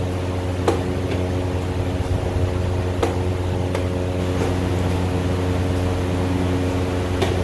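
A steady mechanical hum with several level tones, under about five short sharp clicks that come at uneven intervals: chess moves being made on the board.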